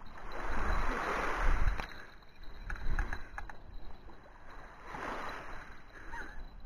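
Small waves washing in on a pebble shore, swelling and fading twice, about a second in and again about five seconds in, with a low wind rumble on the microphone.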